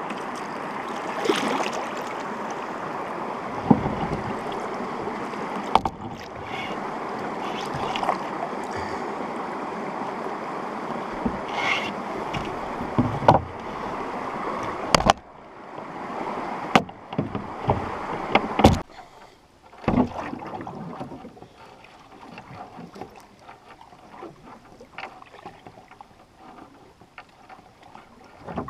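Shallow river water rushing over rocks and sticks in a small riffle beside a canoe, with several sharp knocks and bumps from the paddle and hull. About 20 seconds in, the rush drops away, leaving only quiet paddle strokes and drips on calm water.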